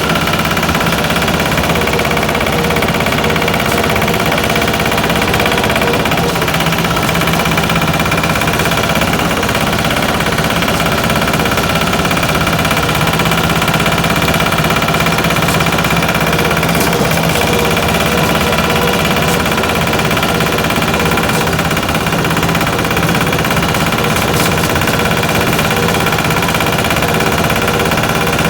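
Single-cylinder diesel engine of a patpat (two-wheel walking tractor) running steadily at an even speed.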